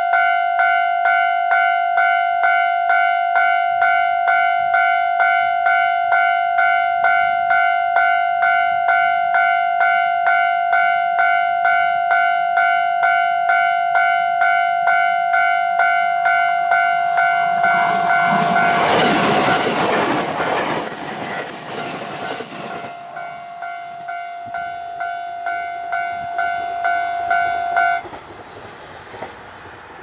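Japanese level-crossing warning bell ringing in a fast, regular electronic ding. About two-thirds of the way through, an E751 series electric express rushes past with loud wheel clatter over the crossing. The bell then stops abruptly a couple of seconds before the end.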